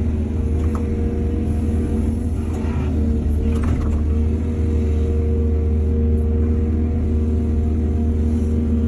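Diesel excavator engine running steadily with a deep drone and a steady whine over it, with a short burst of rattling noise about three seconds in.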